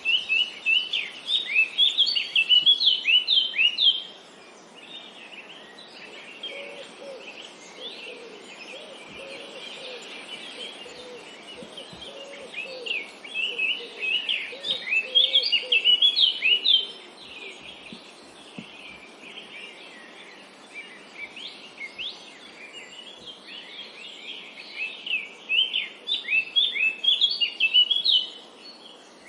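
Songbirds singing: three bouts of fast, repeated high chirps, each a few seconds long, with fainter chirping in between. A lower-pitched series of calls runs underneath through the middle stretch.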